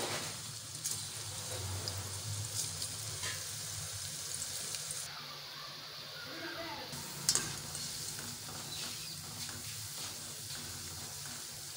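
Strands of karasev dough deep-frying in hot oil in a kadai: a steady sizzle of oil bubbling hard around the dough, the sign the strands are still giving up moisture and not yet crisp. A brief knock about seven seconds in.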